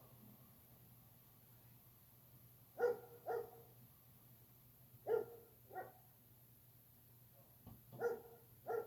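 A dog barking: three pairs of short barks a few seconds apart. Under them runs the low steady hum of a Heritage Landcaster ceiling fan on medium speed.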